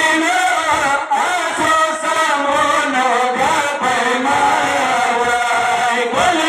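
A Pashto noha, a Muharram mourning lament, chanted as a continuous melodic line with long held notes.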